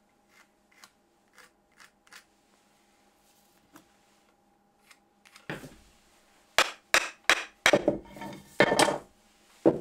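Light ticks of pencil and wood on a bench, then from about five and a half seconds in a quick series of sharp wooden knocks as an oak mallet's handle end is struck down on a wooden workbench.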